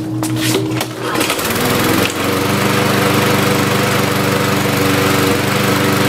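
Petrol lawnmower's small four-stroke engine pull-started, catching a second or two in and then running steadily at speed. It is being run after the mower was tipped up, to burn off any excess smoke.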